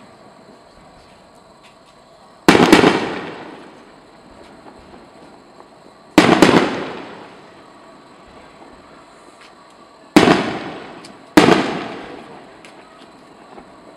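Aerial firework shells bursting: four sharp bangs, each dying away in an echo over about a second, the first three a few seconds apart and the last two about a second apart.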